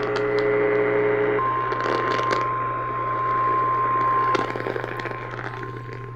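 Emergency alert tone on AM radio: a brief buzzy tone of several pitches gives way, about a second and a half in, to a single steady high tone, the weather-radio warning alarm that precedes a tornado warning. Static hiss and crackles and a low hum of the AM reception run under it.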